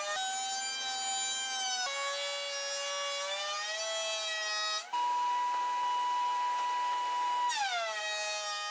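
Benchtop thickness planer's motor and cutterhead whining as hard maple boards feed through, the high-pitched whine sagging in pitch under load and recovering, with a few abrupt jumps in the sound.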